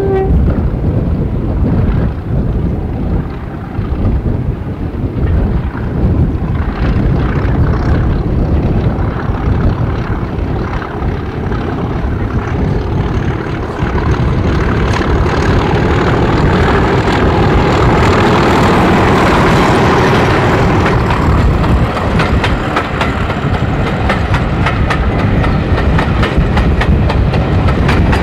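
Class 37 diesel-electric locomotive's English Electric V12 engine running as it hauls a train of coaches towards and past, growing loudest about two-thirds of the way through. Near the end the coaches roll by, their wheels clicking over the rail joints.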